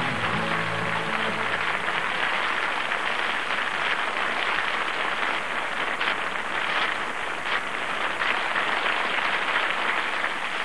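The song's last notes fade in the first second or so. Then a studio audience applauds steadily.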